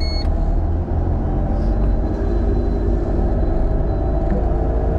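Steady low rumble of a car's engine and road noise heard inside the cabin. A short electronic beep sounds at the very start.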